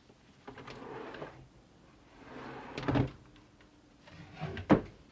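Furniture being opened and shut during a search of a room: a sliding scrape about half a second in, another that ends in a knock about three seconds in, and a sharp single knock near the end.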